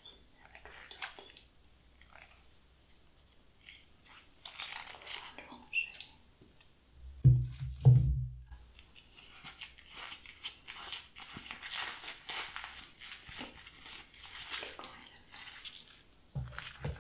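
Close-miked crisp crackling and rustling from a potted plant being worked with gloved hands and pruning shears. A few low thumps come through it, the loudest two about seven and eight seconds in.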